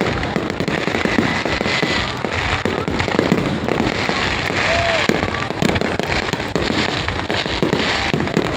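Fireworks display going off continuously: a dense run of bangs and crackles with no pause, with voices faintly underneath.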